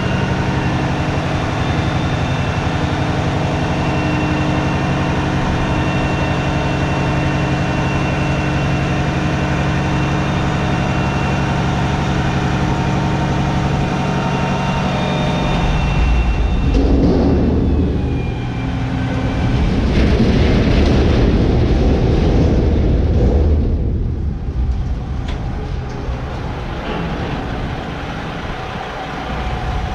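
Heavy diesel truck engine running with a steady hum. About halfway through it changes to a louder, rougher low rumble that rises and falls.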